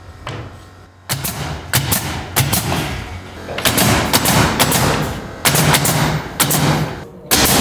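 Pneumatic nail gun, fed by an air hose, firing a series of sharp shots, some in quick runs, as it nails a window frame to the wall.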